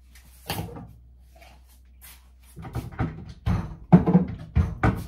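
Irregular knocks and clatter of things being handled and set down: a single knock about half a second in, then a quick, uneven run of thuds and knocks in the second half.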